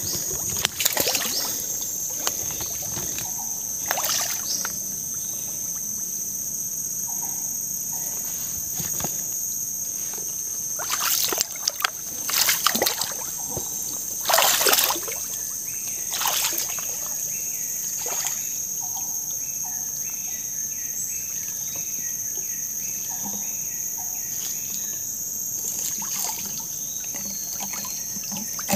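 A person wading through knee-deep swamp water: irregular sloshes and splashes with each step, a cluster of them through the middle, over a steady high-pitched insect drone. A bird calls a run of short repeated notes in the later part.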